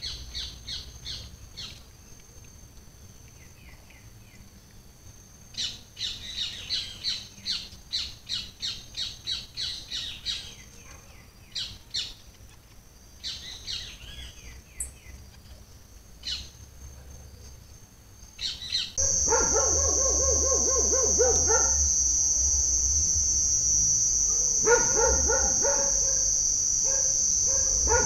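Birds chirping in quick repeated call series. About two-thirds of the way in, a loud, steady, high-pitched insect drone takes over, with bursts of dog barking.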